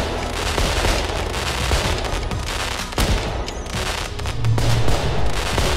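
Fireworks sound effects: a dense, rapid crackling and popping of many bursts, with one sharp bang about three seconds in.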